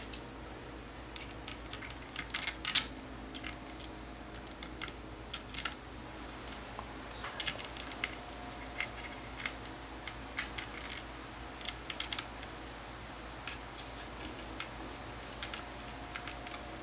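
Small metal clicks and taps at irregular intervals, with a faint steady hum beneath: socket-head bolts being handled and set by hand into the cover of a belt-driven fuel pump.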